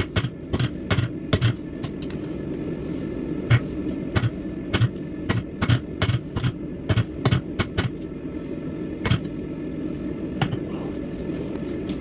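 Hand hammer striking steel on an anvil in irregular runs of blows, about two a second, with pauses, over a steady low background roar.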